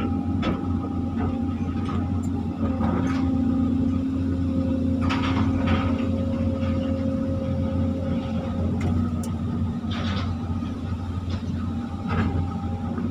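Volvo hydraulic excavator's diesel engine running steadily under working load, heard from inside the cab, with a thin hydraulic whine over the low drone. Several knocks and clatters come from the bucket scooping and swinging its load of soft mud.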